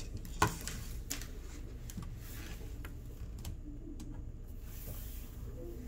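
Scattered light clicks and knocks of a plastic VEX IQ robot being handled on a tabletop, the sharpest about half a second in, over a steady low room hum.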